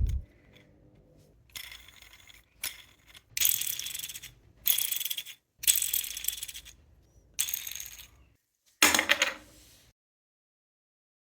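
3D-printed plastic gyro fidget toy being flicked and spun by hand: about seven short bursts of plastic clicking and rattling as its parts turn against each other.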